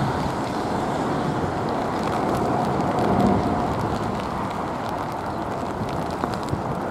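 Twin-engine jet airliner on short final, its engines running with a steady whine over a low rumble, mixed with strong gusty wind buffeting the microphone.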